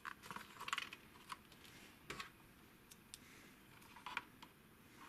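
Light plastic clicks and taps from handling the Samsung Gear VR headset's parts and its small swappable USB connector: a quick cluster at the start, then a few single clicks spaced a second or two apart.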